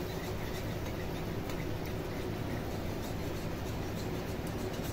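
Steady low hum, with faint scattered clicks of a small wire whisk stirring thick white sauce against a metal saucepan.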